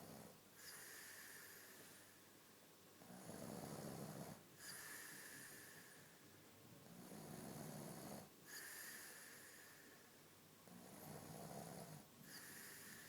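A man snoring in a slow, even rhythm: a low rattling snore followed by a breathy hiss, repeating about every four seconds, three times.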